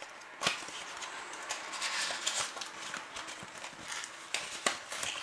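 Packaging being handled: faint rustling with a few small knocks, the clearest about half a second in and two near the end, as a perfume bottle is worked out of its cardboard box.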